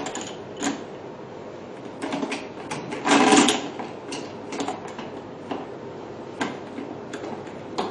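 Handling noises from the metal stand and clamp knob of a PDT LED light panel as it is positioned and tightened by hand: scattered clicks and knocks, with a louder burst of handling noise about three seconds in.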